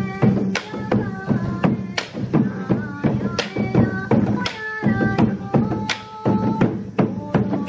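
Japanese bon-odori folk music: taiko drum strokes, roughly two a second, under a wavering melody line.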